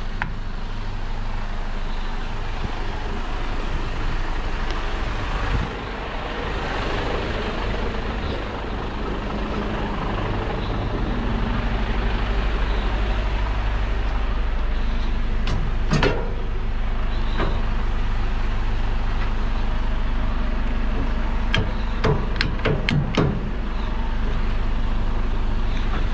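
Semi-truck tractor unit's diesel engine running steadily, growing somewhat louder about halfway through. A sharp knock comes about 16 seconds in, and a quick run of metallic clacks follows a few seconds before the end.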